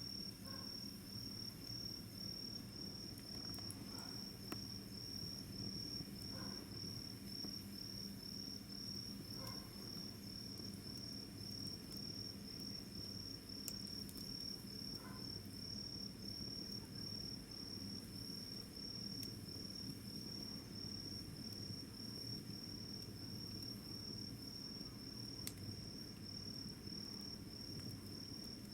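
A cricket chirping steadily, a high, evenly pulsed call repeating about twice a second, over a low background rumble with a few sharp crackles.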